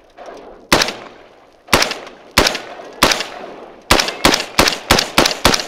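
AR-15-style rifle firing 5.56 rounds, about ten sharp shots in all. The first few come about a second apart, then quicken to roughly three a second in the second half.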